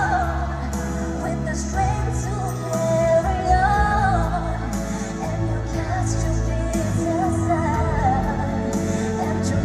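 A woman singing a pop song over a backing track with heavy bass, played through a concert sound system.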